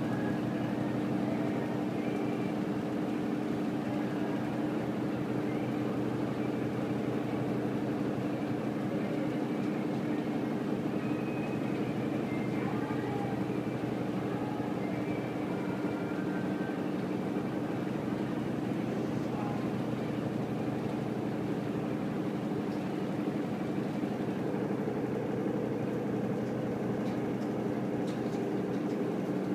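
Samsung front-loading washing machine running with its drum spinning, giving a steady motor hum with no knocking or change in pitch.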